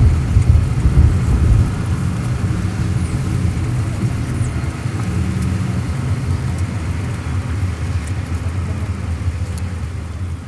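Steady low rumble of a car on the road, a little louder for the first couple of seconds.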